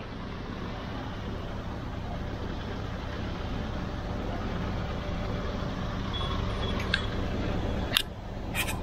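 A fishing boat's engine running steadily under way, with water rushing past the hull. A couple of sharp clicks sound near the end.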